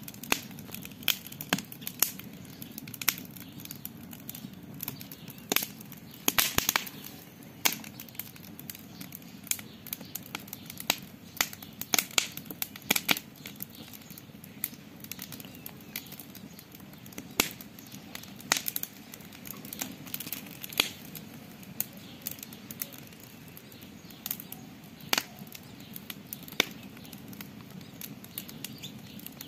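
Campfire crackling: irregular sharp pops and snaps of burning wood over a steady low background, with a dense flurry of snaps about six seconds in.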